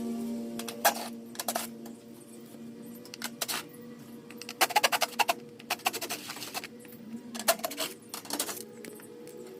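Sharp clicks and metallic knocks of tools and sheet-metal panels being handled while the top of an AC condenser unit is taken off. A steady whir at the start stops about two seconds in.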